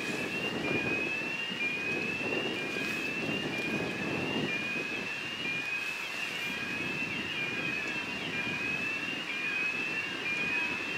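Low rumble of a VL80S electric locomotive and its passenger train approaching from a distance. Over it a high, thin rising tone repeats about once a second.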